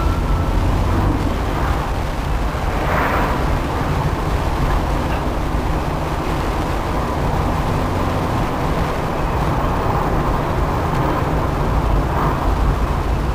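Steady road and engine noise of a 1994 Fiat Elba cruising on a highway, heard inside the cabin, with a deep rumble throughout. A brief louder rush comes about three seconds in and again near the end.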